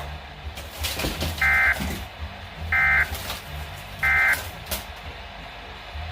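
Weather radio receiving three short bursts of SAME digital data tones, about a third of a second each and about 1.3 s apart: the end-of-message code that closes a weather alert broadcast. A low hum and radio hiss run underneath.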